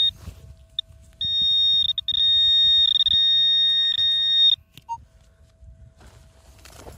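Metal detector's high-pitched electronic tone over a buried target: a short beep, then about a second in a steady tone that holds for about three seconds with a few brief breaks and cuts off, followed by a single short lower beep. Low scuffling and rustling runs underneath.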